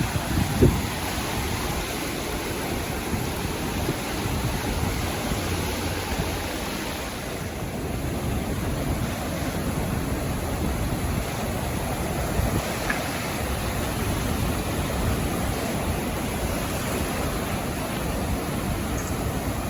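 Sea waves washing onto a sandy beach: a steady rush of surf that swells and eases gently, with a low fluctuating rumble of wind on the microphone.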